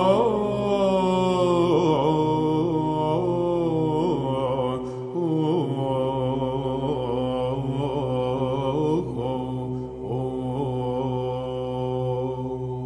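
Byzantine chant in Mode IV legetos: a solo male cantor sings an ornamented, gliding melody over a steady held drone note (the ison).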